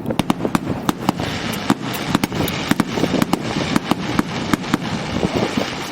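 Fireworks display: a rapid, irregular volley of sharp cracks and bangs, several a second, over continuous crackling.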